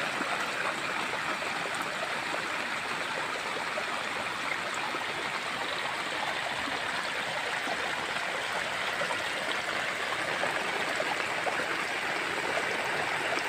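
Muddy rainwater runoff rushing steadily along a small channel through grass, a continuous running-water sound.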